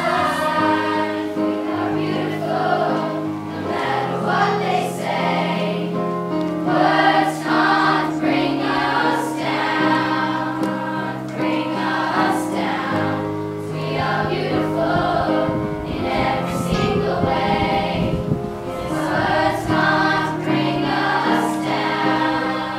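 Middle-school choir singing a song together, the voices moving through a series of held notes.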